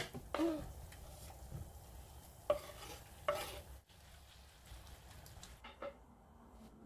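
Sliced peppers and onions sizzling faintly in a frying pan while a wooden spoon stirs them, with two sharp knocks against the pan about halfway through. It goes quieter after an abrupt break, with a single click later on.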